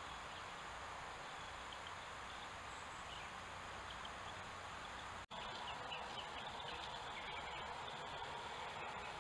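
Outdoor ambience from a trail camera's microphone: a steady background hiss with faint, short bird chirps scattered through it. The sound cuts out for an instant about five seconds in, then the same kind of background carries on slightly louder.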